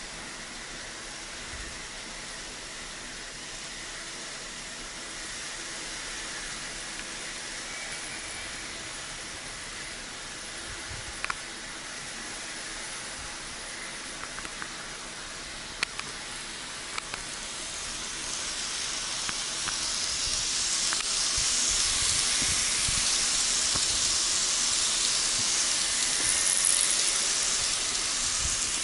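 Tomix N-gauge 583-series model train running on its track: a steady rolling hiss and whir that grows much louder over the last third as the train passes close by, with a few sharp clicks near the middle.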